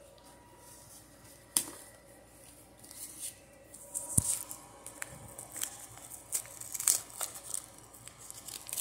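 Paper Pokémon card pack being handled and torn open: sporadic crinkling and tearing of the wrapper with a few sharp clicks, getting busier in the second half.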